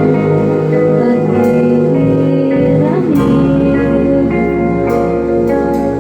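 Live band music with guitars, a bass line that comes in heavier about halfway through, and several cymbal hits.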